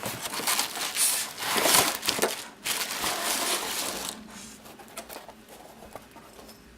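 Plastic packaging crinkling and rustling as a light stand is pulled out of it, loudest in the first four seconds, then quieter rustles and small knocks.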